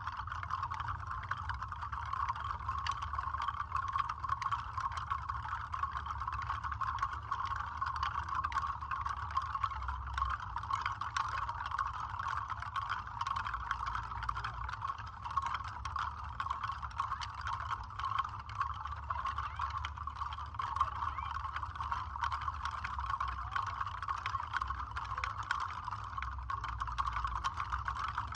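Bellwood seed rattles shaken continuously: a dense, soft patter of seeds clicking against their pods, with no pauses.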